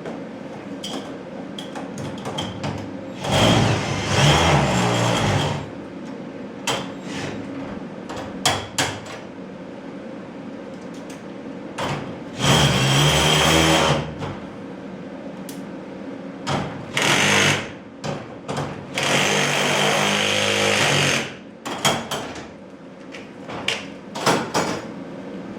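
Power drill driving screws into garage door hardware in three runs of about two seconds each, with short knocks and clicks of handled parts and tools in between.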